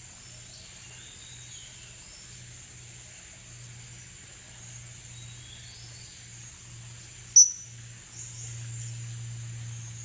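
Blue-crowned hanging parrots giving short, thin high chirps over a steady drone of forest insects, with one sudden, very loud shrill call about seven seconds in.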